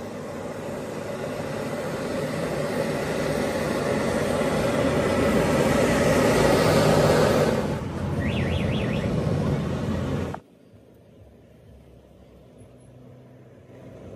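Gas burner flame roaring in a small hearth, growing louder, dipping slightly about eight seconds in, then cutting off abruptly about ten seconds in.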